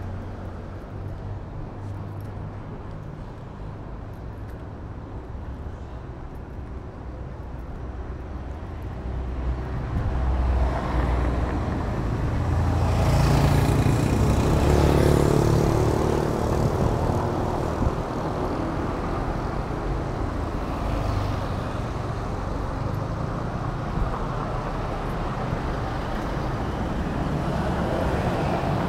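Street traffic: cars and motorbikes driving past along a town road, a steady rumble that swells as a motorcycle passes close about halfway through, then settles back.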